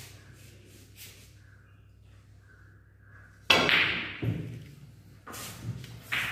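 A snooker shot: the cue strikes the cue ball with a sharp knock about three and a half seconds in. A second knock follows under a second later as the ball hits another ball on the table.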